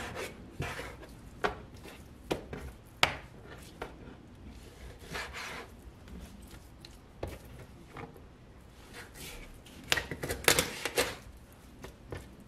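Kitchen knife cutting through raw chicken on a plastic cutting board: scattered sharp taps of the blade on the board with soft slicing and rubbing between, and a quick run of taps about ten seconds in.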